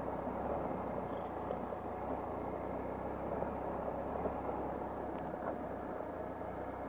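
A 2015 Triumph Explorer XC's inline-triple engine running steadily, with no revving.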